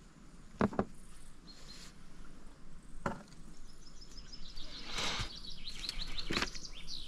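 Hands rummaging through a plastic tackle box of soft plastic lures: sharp plastic clicks, two close together a little over half a second in and another near three seconds, then more rattling and knocking in the second half.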